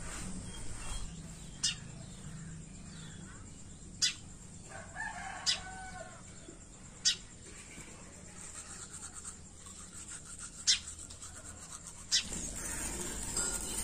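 House sparrow on a motorbike's rear-view mirror: six short, sharp, high sounds spaced one to three seconds apart over a low steady hum, with a brief lower call about five seconds in.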